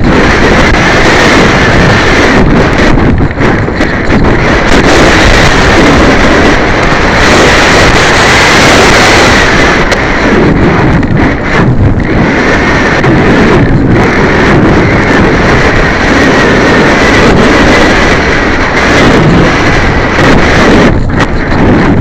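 Wind rushing hard over the microphone of a keychain camera carried on a flying RC sailplane: a loud, steady rush with a faint high tone running through it.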